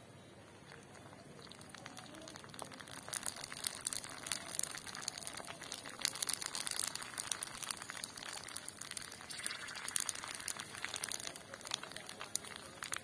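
Fuchka (pani puri) discs frying in hot oil in a kadai, a dense sizzle of fine crackles and pops that builds up about two seconds in and stays busy as the puris puff up.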